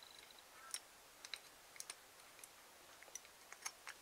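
Faint, irregular small clicks, about a dozen, of the metal parts of a homemade lathe joystick being handled in the fingers: the spring-loaded rocker and its metal bracket.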